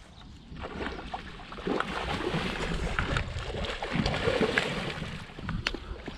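A small hooked fish splashing and thrashing at the water's surface near the bank as it is reeled in, in a run of irregular splashes. Wind rumbles on the microphone underneath.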